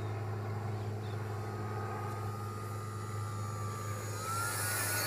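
Electric RC model Cessna Caravan's brushless motor and three-blade propeller whining in flight. About four seconds in, the whine rises in pitch and grows louder as the plane comes in low.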